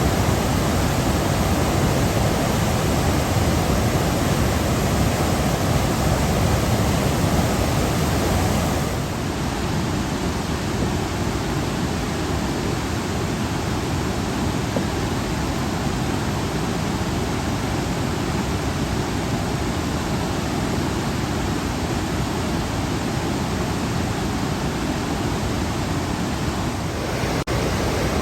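Steady rushing roar of Plaisance Falls, water pouring over the falls. About a third of the way in it becomes slightly quieter and less bassy, then shifts again briefly near the end.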